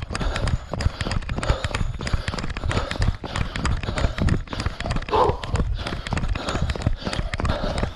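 A runner's footfalls as a steady stream of knocks, with his breathing coming through now and then, picked up by a microphone jostled along with him.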